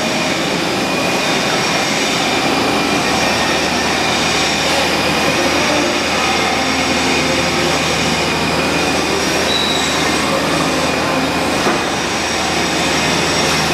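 Daewoo Puma 500 CNC turning center running: a steady, loud machine noise with several high, thin whining tones held throughout.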